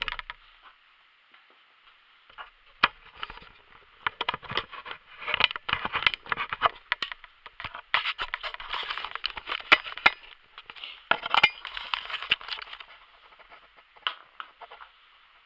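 Handling noise from the camera being picked up and moved: irregular scraping and rubbing against the microphone with sharp clicks, busiest through the middle and quieter at the start and near the end.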